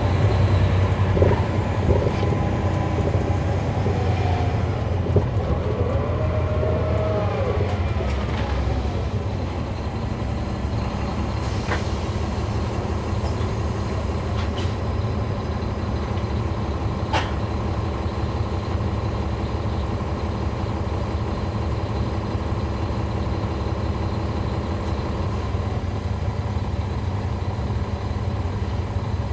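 Caterpillar C13 diesel engine of a NABI 40-foot transit bus, heard from the rear seats. For the first several seconds it runs heavy under way, with a whine that bends in pitch. From about eight seconds in it settles to a steadier, lighter running, like an idle, with a few sharp clicks.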